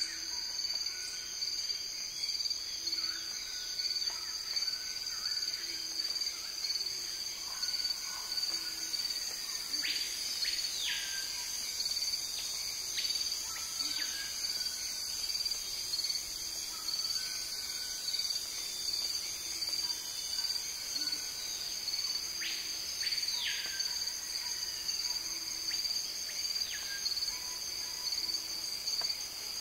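Natural soundscape of a steady insect chorus trilling at two high pitches. Bird calls that fall in pitch cut in now and then, most clearly around ten to fourteen seconds in and again near twenty-three and twenty-seven seconds, over short repeated lower calls.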